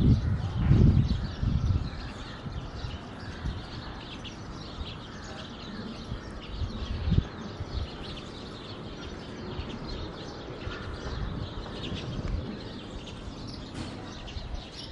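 Outdoor ambience with small birds chirping repeatedly, over a steady low background hiss. A low rumble fills the first two seconds, and there is a single short knock about seven seconds in.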